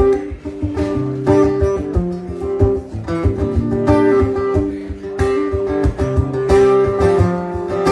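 Acoustic guitar strummed in a steady rhythm, a live instrumental passage with no singing.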